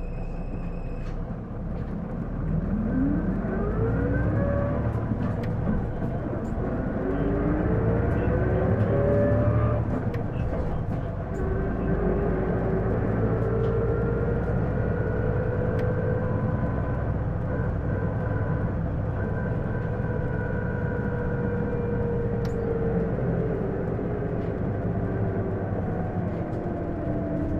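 Interior running sound of an Isuzu Erga PJ-LV234L1 diesel city bus pulling away and gathering speed. Several whines climb in pitch one after another, then one whine holds steady while it cruises and falls away near the end as it slows. This whine under acceleration is the abnormal noise, like a PDG-LR's automatic transmission, which the owner suspects comes from the transmission. A high steady electronic tone stops about a second in.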